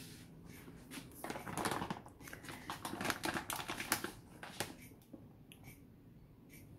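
Plastic bag of shredded pizza cheese crinkling as it is handled, a dense run of crackles from about a second in until near five seconds.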